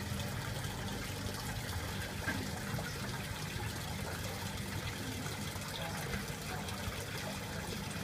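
Water from an aquarium filter outlet trickling and splashing steadily into a goldfish tank, with air bubbling up through the water.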